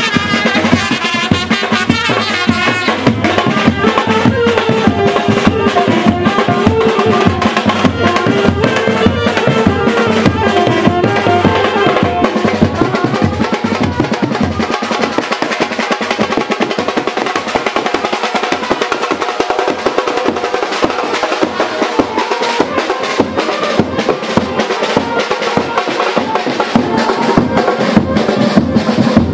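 Band music: a brass melody over fast, dense snare and bass drumming, the drums carrying on busily after the tune fades back about a third of the way in.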